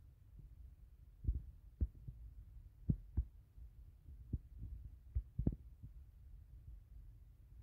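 Wind buffeting the microphone: a low rumble broken by irregular dull thumps, about seven in all, the loudest about three and five and a half seconds in.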